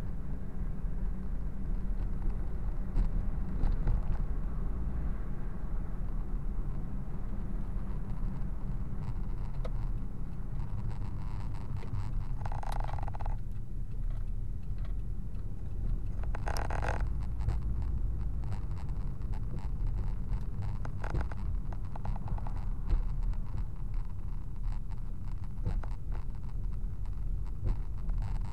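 Car driving on city streets, heard from inside the cabin: a steady low rumble of engine and road noise. Two short higher-pitched squeaks come about twelve and sixteen seconds in, with faint scattered clicks.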